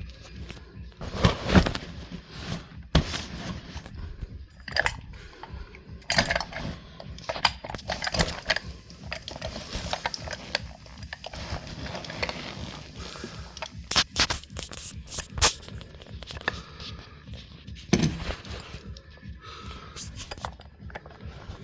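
Close handling noise: irregular knocks, clicks and scrapes as equipment and handcuffs are fumbled and moved about, with several sharper knocks scattered through.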